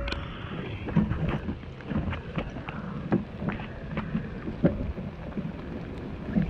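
Heavy rain with wind buffeting the microphone: a low rumbling hiss with scattered, irregular sharp ticks and knocks.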